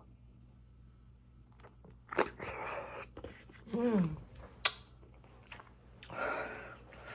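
Close-up mouth sounds of eating soft canned pear halves with cottage cheese: wet chewing and smacking in two short bursts, about two and six seconds in. A brief hummed "mm" and a sharp click fall between them.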